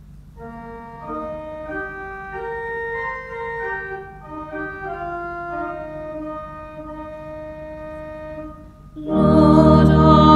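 Church organ playing a hymn introduction in slow, held chords that change every second or so. About nine seconds in, it gets much louder as a woman's voice starts singing the hymn over the accompaniment.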